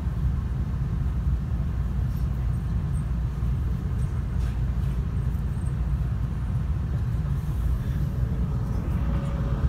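Steady low rumble of a 700 Series Rail Star shinkansen car's interior at a station platform.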